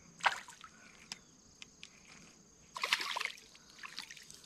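Small hooked fish splashing and thrashing at the water's surface close to the bank as it is reeled in. The splashing comes in short bursts, one about a third of a second in and a longer one around three seconds in.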